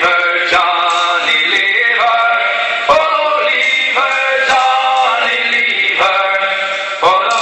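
Background music of men singing held notes in unison, the pitch moving from note to note every half second or so, with a few sharp knocks in the accompaniment.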